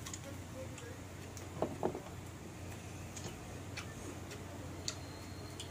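Faint scattered clicks and scrapes of a kitchen knife paring a green mango and of fingers working in a plastic tub, with two brief dull knocks about 1.5 to 2 seconds in, over a low steady hum.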